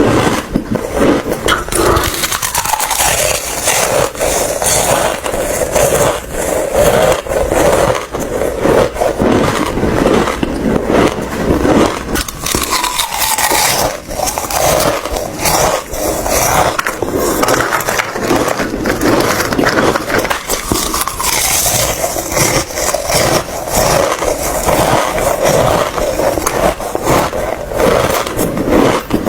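Ice being bitten and chewed close to the microphone: a dense, continuous run of crunching and crackling.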